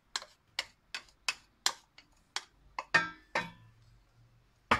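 Wooden spoon knocking on a glass bowl and a stainless steel pot while chopped onion is scraped in and stirred: a quick run of sharp taps, about three a second, then a few slower knocks, some with a short ring, the loudest near the end.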